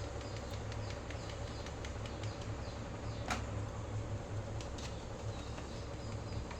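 Steady low hum with faint handling noise, small ticks and one sharp click about three seconds in.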